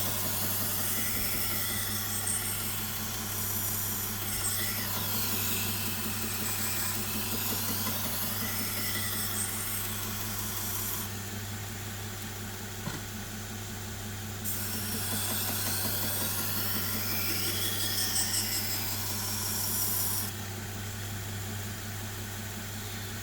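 Belt grinder motor running steadily while a knife blade hisses against the moving abrasive belt in sweeping sharpening passes. The blade comes off the belt about eleven seconds in, goes back on a few seconds later, and comes off again near the end, leaving the motor running alone.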